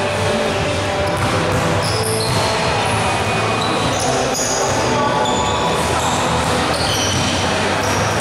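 Indoor basketball game: a ball bouncing on the court and sneakers squeaking, in a reverberant gym. Short high squeaks come and go over a steady low hum.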